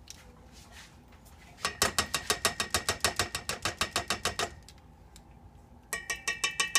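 Measuring spoon stirring sauce in a stainless steel saucepan, knocking against the side of the pan about eight times a second so that the pan rings. The stirring pauses for about a second and a half partway through, then starts again.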